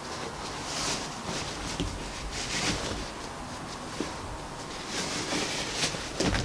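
Cotton wax-print fabric rustling and swishing in several bursts as it is bunched along elastic being threaded through a skirt's waistband channel. A few light clicks come in between, the loudest near the end.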